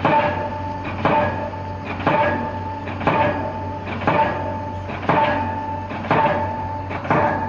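IHC SC150 hydraulic hammer driving a precast concrete pile, striking about once a second, each blow a sharp impact followed by a short metallic ring, over a steady low hum.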